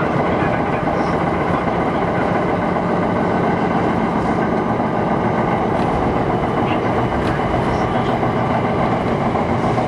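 Kintetsu 1000 series electric commuter train running at speed, heard from inside the car: a steady, unbroken rumble of wheels on rail and running gear.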